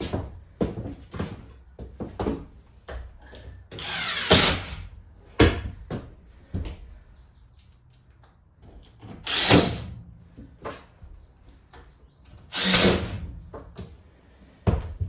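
Power drill driving screws into the bus's subfloor in three short runs, one with a rising whine, with sharp knocks and taps in between.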